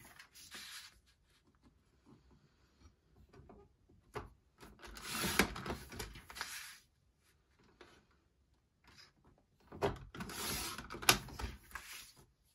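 Sliding paper trimmer cutting patterned paper into strips: the blade carriage is run along the rail twice, about four seconds in and again about ten seconds in, each stroke a scraping swish of about two seconds with a sharp click. Soft paper rustling between the cuts.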